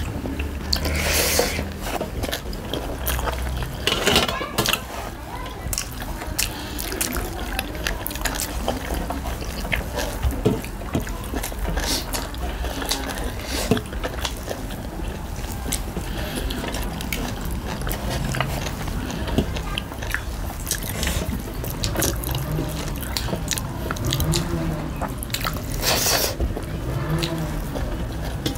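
Close-miked eating sounds of two people eating rice and pork by hand: wet chewing and lip smacking, with many small clicks as fingers mix rice on steel plates.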